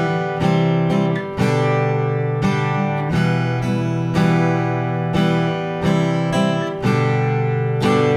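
Steel-string acoustic guitar strummed in a steady down, up, down, down pattern, changing chords every few seconds through E minor, C and G.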